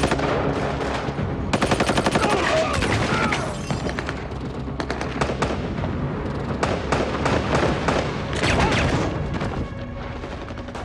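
Gunfire in a film gunfight: a rapid burst of automatic fire lasting about two seconds, then scattered single shots and short bursts. The firing dies down near the end.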